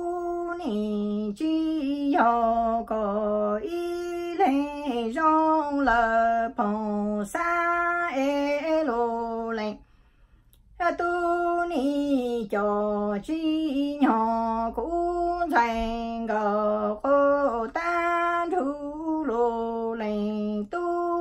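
A woman singing Hmong lug txaj (sung poetry) solo, in long held notes that step and waver between pitches. She breaks off for a breath about ten seconds in.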